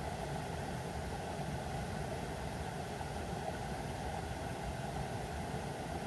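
Steady, even rushing of water, with no individual drops or splashes standing out.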